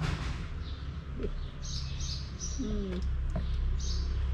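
Small birds chirping: short, high chirps in quick clusters, over a steady low background rumble.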